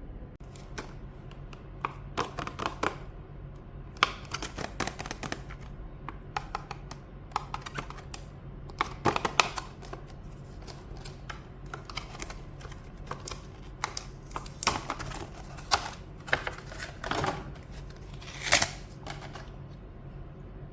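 Mechanical keyboard being typed on: irregular runs of sharp key clicks with short pauses between them, over a steady low hum.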